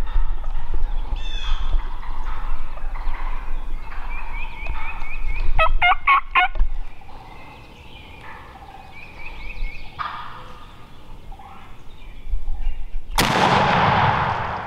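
Wild turkey gobblers gobbling again and again at close range, then a single loud shotgun shot near the end that echoes for about a second and a half.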